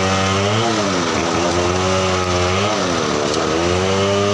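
Engine running steadily with a pitch that sags briefly and recovers about every two seconds, as if taking a load in repeated cycles.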